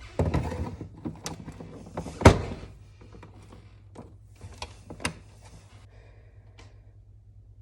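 Kitchen objects being handled: a short scraping clatter, then one loud thunk about two seconds in, followed by a few lighter knocks and clicks that thin out near the end.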